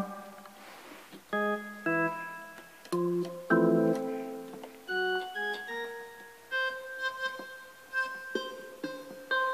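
Piano voice of a MIDIPLUS miniEngine USB sound module, played from a Casio keyboard over USB: a short run of single notes and chords, each struck and then fading.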